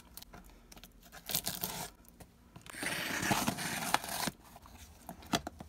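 A small blade slitting the packing tape along a cardboard box's seam: a short scratchy cutting stroke, then a longer, louder one from about three seconds in.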